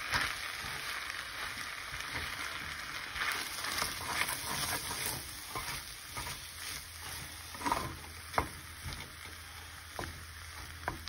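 Fried rice sizzling in a nonstick skillet while a spatula stirs and scrapes through it, with a few sharp taps against the pan in the last few seconds.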